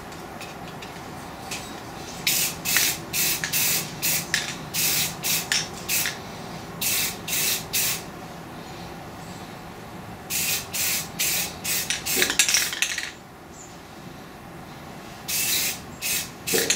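Aerosol spray paint can hissing in many short bursts as black base coat is sprayed onto a welded steel frame, with one longer spray about three-quarters of the way through.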